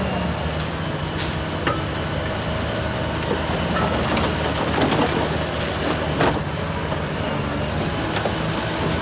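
Heavy diesel engine of a bulldozer running steadily, with several sharp metallic clanks and knocks, the loudest near the middle and about six seconds in.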